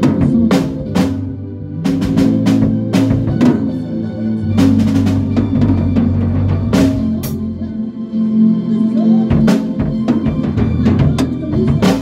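Drum kit played with sticks: irregular snare, kick and cymbal hits and fills over the sustained low notes of the accompanying band. The drumming stops near the end.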